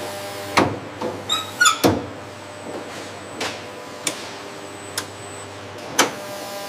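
Several sharp knocks and clicks at irregular spacing, like parts or tools being handled, over a faint steady hum of machinery.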